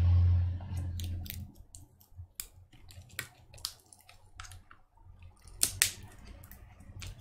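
Scattered sharp clicks and crackles of fingers and a plastic pry tool working glued lithium-polymer battery cells loose in an opened MacBook Pro Retina's aluminium case, the loudest pair near the end. A low hum opens it for about a second.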